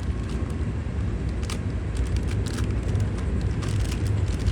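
Steady low rumble of a nearby train running on after its horn, with a few faint clicks of small parts being handled.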